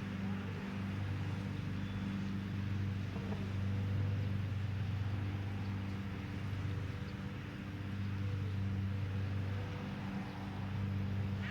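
A steady low motor hum running throughout, swelling and easing a little in loudness.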